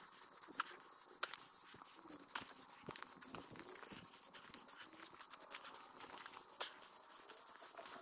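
Aerosol can of Krylon COVERMAXX flat clear spray paint hissing as it is sprayed, with many small sharp clicks mixed in.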